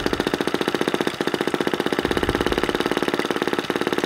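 Small split-cycle two-stroke model engine running under its own power, firing in a fast, even popping rhythm of about ten beats a second, with two brief falters. It has just caught after adjustment of its air intake valve, which the owner finds super critical.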